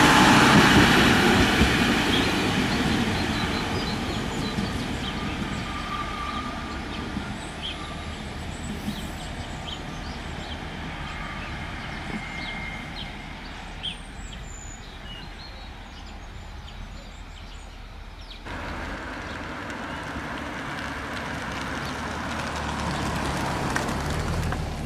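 Alstom Coradia LINT diesel railcar running past on the rails and fading away, with faint bird chirps over the quieter stretch. About three-quarters through, the sound cuts to another railcar's low diesel rumble, which grows slowly louder as it approaches.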